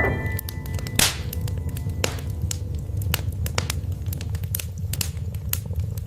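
Wood fire in a fireplace crackling, with irregular sharp pops and snaps over a steady low rumble of burning logs, and a louder hissing pop about a second in.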